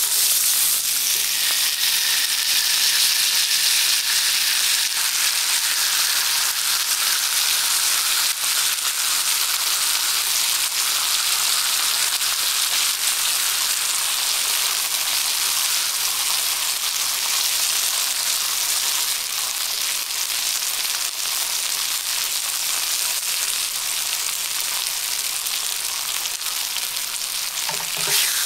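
Beef striploin steak searing over high heat in a cast-iron pan, fat and juices sizzling in a steady, even hiss with fine scattered spitting.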